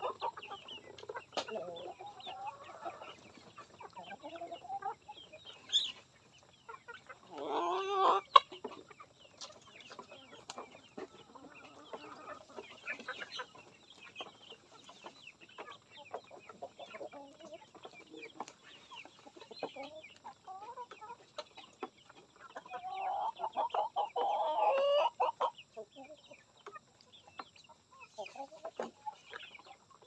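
Free-range chickens clucking and calling, with a louder call about eight seconds in and a longer call lasting a couple of seconds later on.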